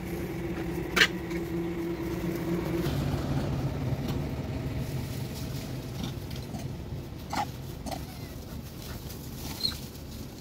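A motor vehicle's engine running steadily, its hum dropping to a lower pitch about three seconds in. A few short, sharp sounds are on top of it, the loudest about a second in.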